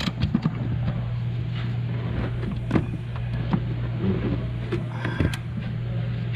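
Scattered metal clicks and knocks of hand tools working on a rear shock absorber mount, over a steady low hum.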